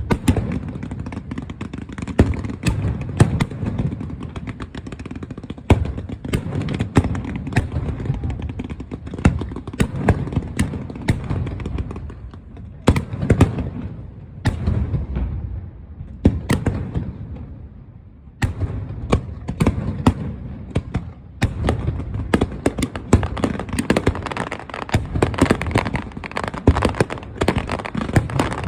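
Aerial fireworks going off: many bangs in quick succession, thinning out for a few seconds in the middle before coming thick and fast again.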